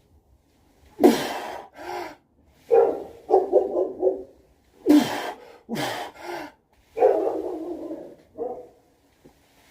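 A dog barking in a run of short, irregular barks and yelps, some dropping in pitch.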